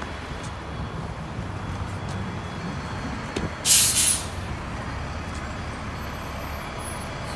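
City transit bus running at the curb with a steady low engine rumble; about halfway through, a short, loud hiss of compressed air from its air brakes.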